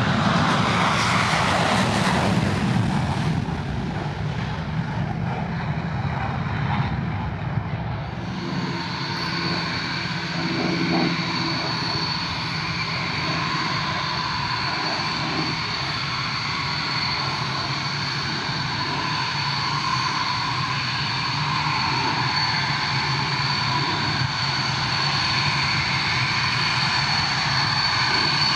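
Dassault Mirage 2000's single SNECMA M53 jet engine running at taxi power: a steady high whine over a low rumble. A louder rush of engine noise in the first few seconds dies down by about four seconds in.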